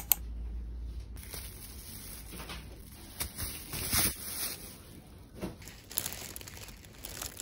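Crinkling and rustling handling noises in short irregular bursts, with a sharp click at the very start.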